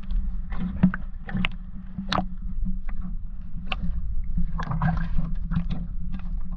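Muffled water sloshing and gurgling against a waterproof action-camera housing held half-submerged, with many small clicks and knocks and a steady low hum underneath.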